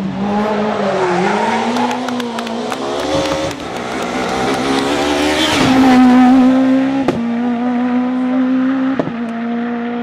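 Suzuki Swift rally car engine revving hard. Its pitch dips about a second in, climbs, then holds high and steady in the second half, with two sharp cracks near the end.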